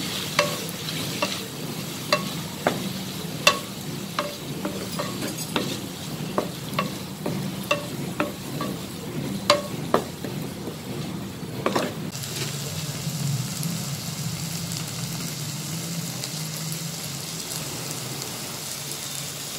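Mint and coriander leaves frying in oil in a pan, stirred with a wooden spatula that knocks and scrapes against the pan in frequent sharp clicks. The stirring stops about twelve seconds in, leaving a steady sizzle.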